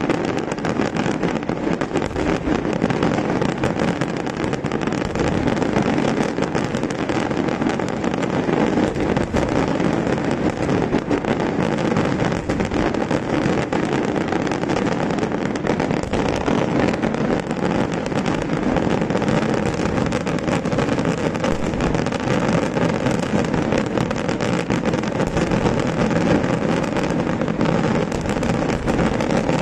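Daytime fireworks going off in an unbroken rapid barrage, a dense crackle and rumble of many small bangs with no pause.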